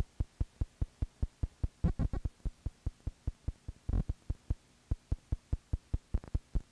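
Low electrical throbbing on the audio track, a quick, regular pulse of about six beats a second, with a few louder thumps about two, four and six seconds in.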